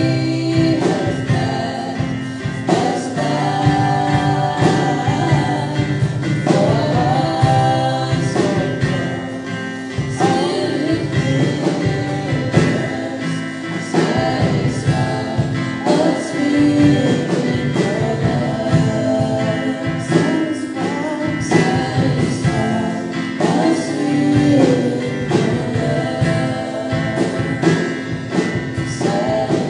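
Live worship band playing a song: women singing into microphones over strummed acoustic guitar and a drum kit.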